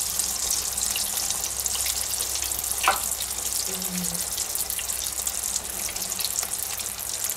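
Spring rolls deep-frying in hot oil, at about 170 °C, in an electric deep fryer: a steady bubbling sizzle, with a few light ticks of metal tongs against the wire basket.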